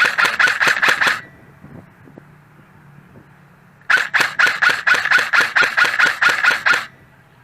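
Airsoft gun firing in two rapid strings of shots, about six or seven a second: a short string of about a second, then a longer one of about three seconds starting about four seconds in.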